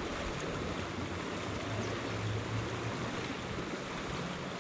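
Steady outdoor rushing noise of moving air and water, with a low hum that fades in and out.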